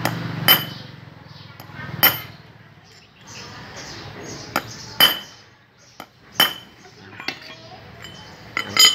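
Hammer striking a steel punch set in a round steel plate: five sharp, ringing metallic clinks, irregularly spaced a second or more apart, with a few lighter taps between them.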